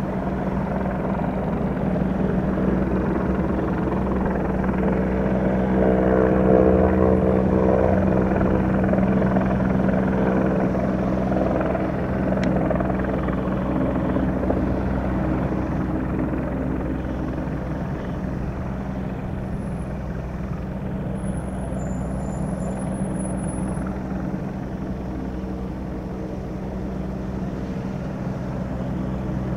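News helicopter flying overhead: a steady drone of rotor and engine. It grows louder to a peak about six seconds in, then slowly fades as it moves off.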